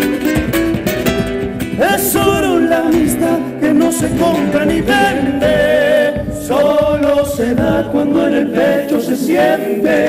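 Argentine folk group singing in harmony over strummed acoustic guitars and bombo legüero drums, played live, plausibly a chacarera.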